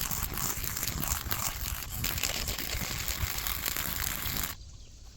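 Dense crackling and rustling of dry brush being cleared by hand, a thick run of small snaps that cuts off abruptly about four and a half seconds in.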